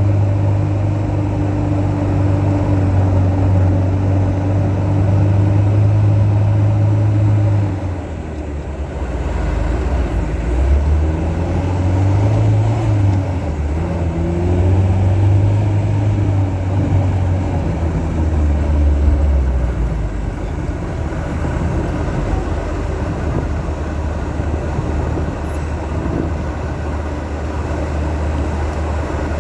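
An engine running steadily. Its pitch shifts up and down several times from about a third of the way in, as the revs change, then it settles back to a steady note.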